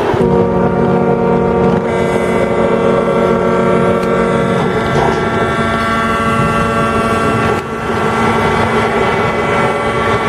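Several ships' horns blowing together in one long steady chord, the salute sounded at a ship launch. More horns join about two seconds in and some drop out near the middle.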